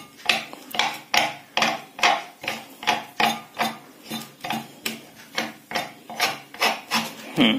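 Steel bearing puller being wound down by its T-handle, giving a steady series of short metallic scraping clicks, about three a second, as it works a jammed ball bearing off a ceiling fan's shaft.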